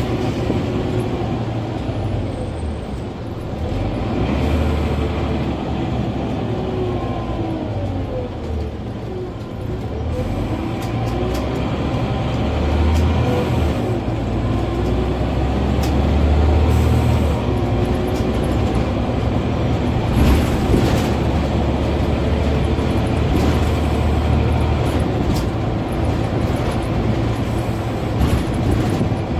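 Scania N94UB OmniCity single-deck bus on the move, heard from inside the passenger saloon: the rear-mounted diesel engine runs with a steady low rumble, and a whine falls and then rises again about a third of the way through as the bus slows and pulls away. Short knocks and rattles from the body come through now and then.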